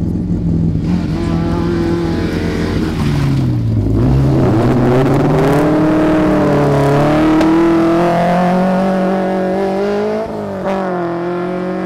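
Renault Clio III rally car's engine pulling away and accelerating up the road, revs dipping about three seconds in, then climbing steadily, with a shift near the end.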